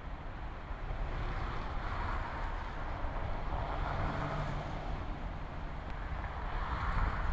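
Road traffic noise: a steady rumble with swells as vehicles pass, about three times.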